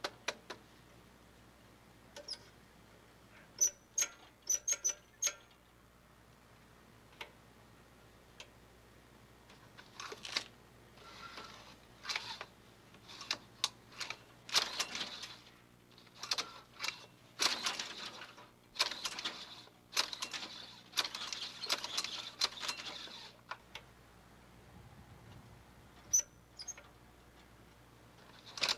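A few light sharp clicks and taps, some with a brief metallic ring, then a long stretch of scraping and rustling in short bursts, as of things being handled; a faint steady low hum underneath.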